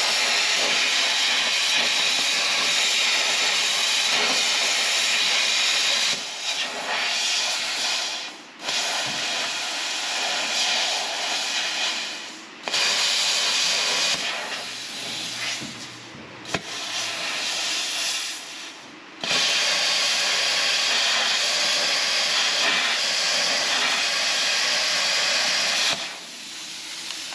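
Plasma cutter hissing as it cuts out the rusted floor pan of a 1966 Ford Mustang, stopping and restarting several times with a longer pause about six seconds in. The cut goes slowly because tar coating on the floor has to melt before the metal does.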